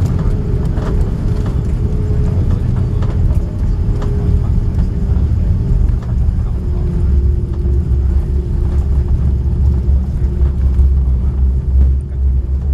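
Airbus A330 cabin noise on the landing roll: a steady low rumble from the engines and the wheels on the runway, with a faint hum that steps down in pitch about halfway through.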